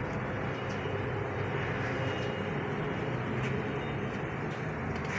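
Steady whir of an electric wall fan, with a few faint clicks of snooker balls.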